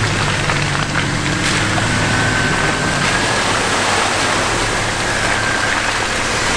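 Off-road vehicle crawling along a wet, muddy trail: a steady rushing noise of engine and tyres, with a thin high whine that comes in about two seconds in.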